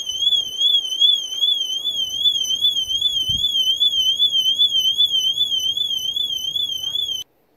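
Cobra CANBUS alarm siren on a VW T5 Transporter, set off by its ultrasonic interior sensor: a loud, high electronic tone warbling quickly up and down, about three to four times a second. It cuts off suddenly near the end.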